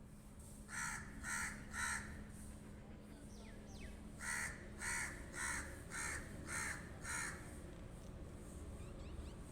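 Pet crow cawing: three quick caws about a second in, then a run of six evenly spaced caws a couple of seconds later.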